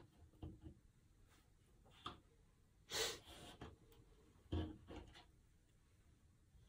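Cardboard jigsaw puzzle pieces being picked up, slid and set down on a tabletop: scattered soft clicks and taps, with a louder brief hiss about three seconds in and a sharper tap about a second and a half later.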